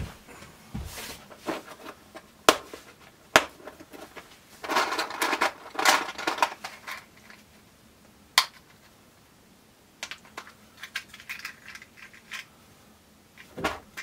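Small hard plastic parts being handled: a clear plastic box of spare blade fuses opened and fuses picked through, with a few sharp snaps, a stretch of rustling about five seconds in, and light clicking and rattling later on.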